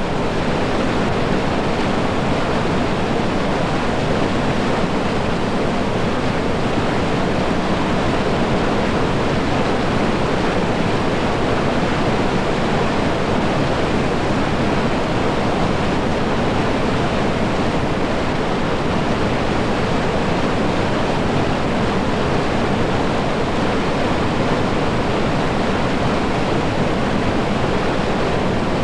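River rapids rushing: a loud, steady, even noise of churning whitewater.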